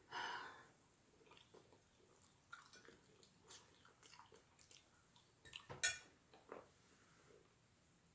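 Close-up eating sounds: a person chewing with wet mouth noises and small clicks. The loudest cluster of sharp smacks comes about six seconds in.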